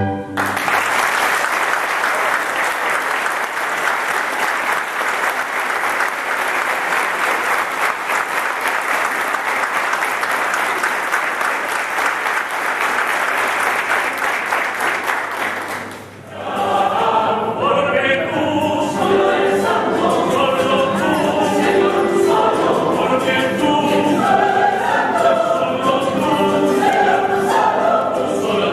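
Audience applauding for about sixteen seconds until it cuts off abruptly, followed by a mixed choir of men and women singing.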